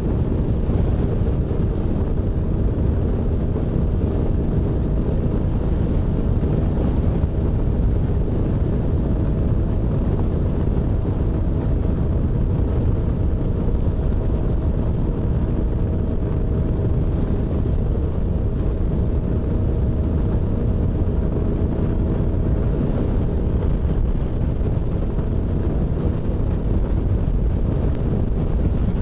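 Motorcycle engine holding a steady drone at highway cruising speed, mixed with wind rushing over the helmet-mounted microphone.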